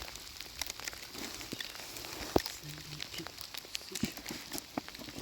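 Scattered, irregular small clicks and light crackling, with one sharper tick a little over two seconds in.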